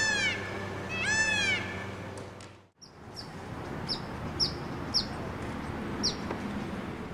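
Peacock calling twice, about a second apart: loud calls that rise and fall in pitch. After a sudden break, short high chirps repeat about twice a second.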